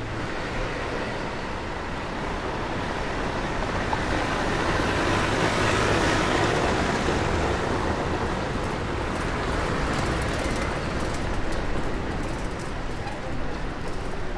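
Street traffic noise, with a motor vehicle passing close: its sound swells to a peak about six seconds in and dies away.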